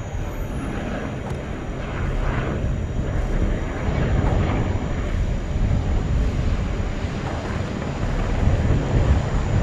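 Helicopter engine and rotor noise, a steady dense drone with a strong low end that grows louder about two seconds in.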